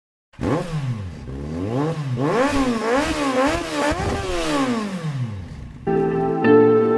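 Motorcycle engine revving up and down several times, its pitch rising and falling with each rev and fading out after about five seconds. Near the end, music with sustained, plucked-string-like notes begins.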